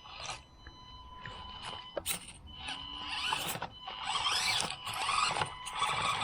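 Axial SCX24 Deadbolt mini crawler running in low gear, its small brushed electric motor and drivetrain whining steadily. Scratchy scraping noises come in from about three seconds in and grow louder.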